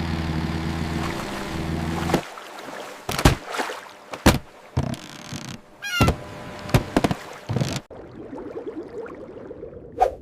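Animation sound effects: a low, steady engine-like hum that cuts off about two seconds in, followed by a series of sharp knocks and cracks.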